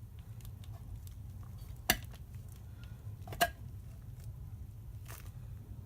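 Metal parts and tools being handled on a workbench: small clinks and taps, with two sharp metallic knocks about a second and a half apart, over a steady low hum.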